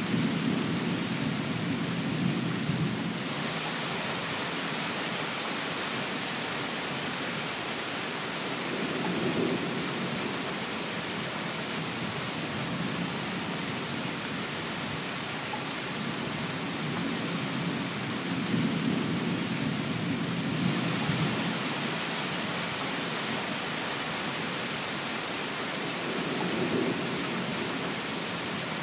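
Steady rain hissing, with low rumbles of thunder swelling up several times: at the start, about nine seconds in, for a few seconds around the two-thirds mark, and again near the end.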